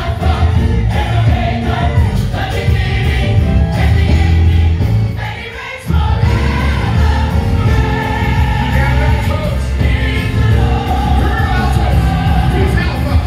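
Gospel choir singing with a live band, strong bass underneath. The music drops away briefly about halfway through, then comes back in full.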